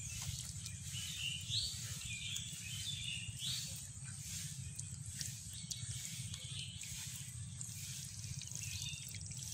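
Rural outdoor ambience: a steady low background hum with brief high-pitched chirping calls, a run of them about a second in and a few more near the end.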